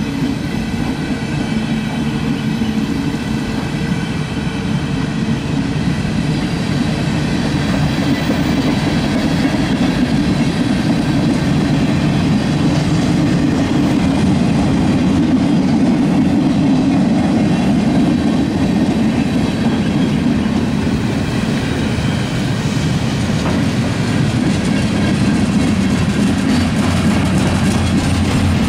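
Freight train cars rolling past: a steady rumble of steel wheels on rail with clickety-clack. A faint high whine fades out about halfway through.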